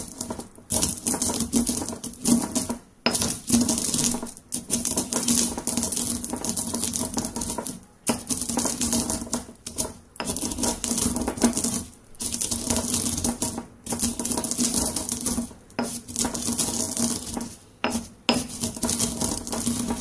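Stone pestle crushing and grinding whole roasted coffee beans in a stone mortar: a continuous gritty crunching and scraping of hard beans against stone, with short breaks every second or two. It is the gentle first stage of grinding, with the beans still mostly whole.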